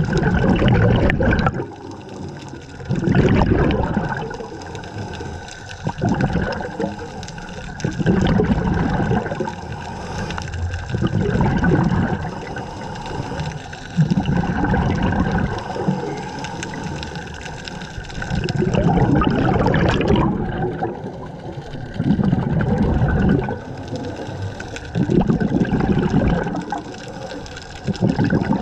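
Scuba diver breathing through a regulator underwater: bubbles gurgling in regular bursts every two to three seconds, over a faint steady hum.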